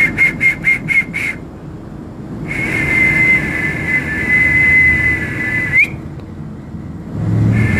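High-pitched whistling used as a sound-healing treatment: six short rapid blasts, then a long steady note of about three seconds that flicks upward as it ends, and another long note starting near the end. A low steady hum runs underneath.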